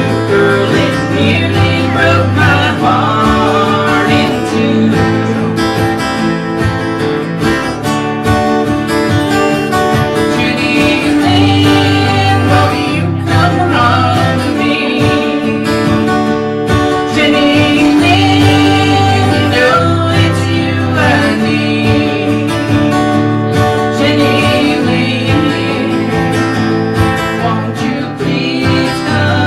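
Country band playing an instrumental break: acoustic guitar and other plucked strings over a steady bass line.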